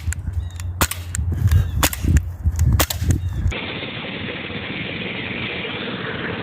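Air gun shots, several sharp cracks in quick succession over a low rumble. About three and a half seconds in the sound cuts suddenly to a steady hiss.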